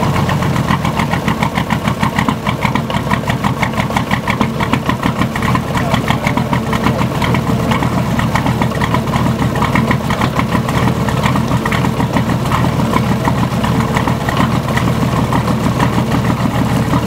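VM/BMW D190 marine diesel engine running steadily at a fast, even firing beat. It runs badly, which the owner puts down to a leaking shaft seal at the front of the injection pump.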